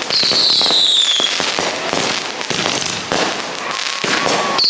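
Fireworks and firecrackers popping and crackling in a dense, continuous barrage, with a high whistle falling in pitch for about a second just after the start.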